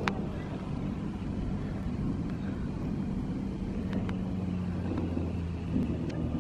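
Outboard motor of a small motorboat running steadily, a low drone that grows a little stronger in the second half.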